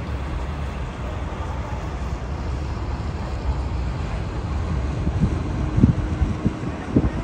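Wind buffeting the microphone: a steady low rumble and rush, with stronger gusts thumping in the last two seconds.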